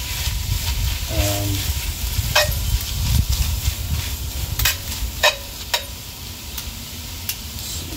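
Chicken and green chilies sizzling in hot oil while being stirred. The spoon scrapes and clinks against the pan a few times.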